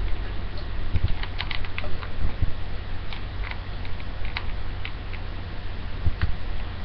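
Small clicks and rustling of a hair flat iron being clamped and drawn through hair, scattered mostly through the first half, over a steady low hum.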